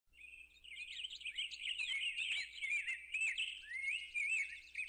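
Birdsong: birds chirping and twittering in quick, warbling up-and-down phrases.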